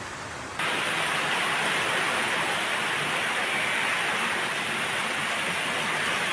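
Heavy tropical downpour, a steady hiss of rain that jumps louder about half a second in.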